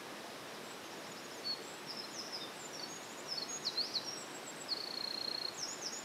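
Eurasian wren singing a rapid, high song of quick notes with a held trill, starting about a second and a half in, over the steady rush of a mountain stream.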